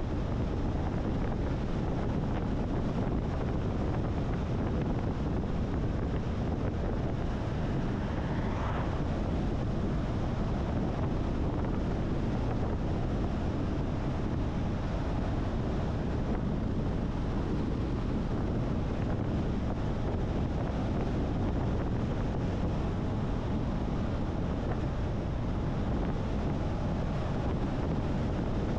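Steady low rumble of a car driving on the road: tyre and wind noise, unchanging throughout.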